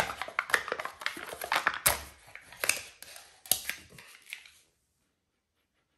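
Packaging of a powdered smoothie-bowl mix being handled and opened: a quick run of crinkles, rustles and clicks that stops abruptly about four and a half seconds in.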